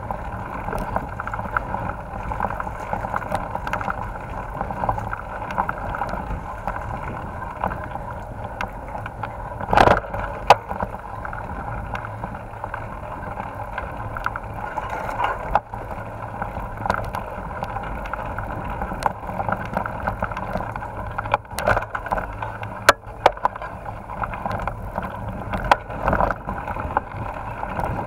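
Mountain bike riding a bumpy dirt trail, heard muffled from a camera mounted on the rider or bike: a steady rumble and rattle of tyres and frame over the ground, with sharp knocks now and then, the loudest about ten seconds in.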